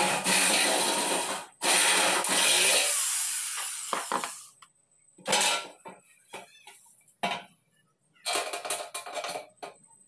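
Corded electric hand drill boring into an aluminum tubular frame profile, running in two stretches with a short break about a second and a half in, then winding down around four seconds in. After it, a few short knocks and rattles of the aluminum profiles being handled.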